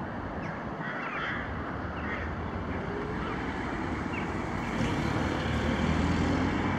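Steady outdoor rumble and hiss of a vehicle that draws nearer and gets louder from about five seconds in, with a few faint crow caws in the first two seconds.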